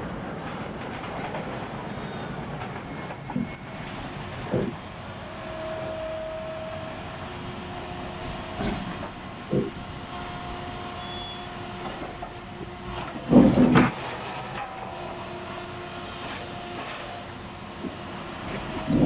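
Track renewal train machinery running with a steady noise. Scattered metallic clanks and knocks sound over it, along with a few held whining tones. The loudest burst of clanking comes about thirteen seconds in.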